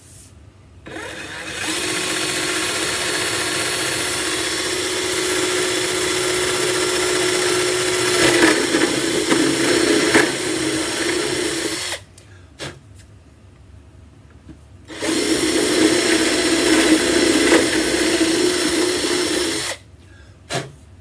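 Cordless drill boring a hole through the side of an acoustic guitar body for the input jack. The motor runs steadily for about ten seconds with a few clicks as the bit bites, stops, then runs again for about five seconds.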